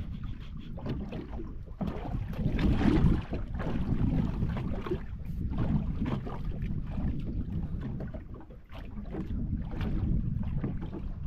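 Wind buffeting the microphone on a small boat at sea, a low uneven rumble that swells in gusts.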